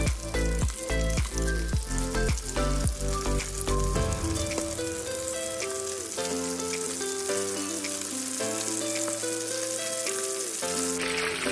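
Starch-coated pork stomach pieces deep-frying in oil: a steady sizzle. Background music plays over it, with a beat for the first few seconds, then held notes.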